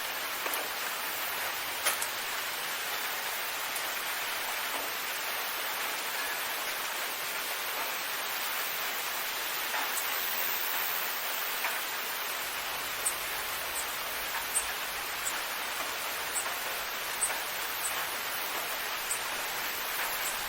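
Steady rain, with the odd sharp drop tick standing out here and there.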